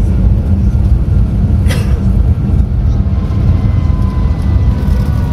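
Loud, steady low rumble of a moving vehicle's engine and road noise, heard from inside, with a faint steady whine over it.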